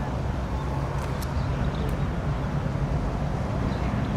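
Steady low rumble of a passing ship's diesel engine, with a few faint clicks.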